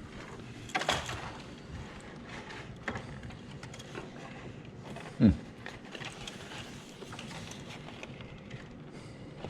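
Vertical-blind slats being handled and clipped back into the headrail clips: light rustling and small plastic clicks. About five seconds in comes one short, louder sound that falls in pitch.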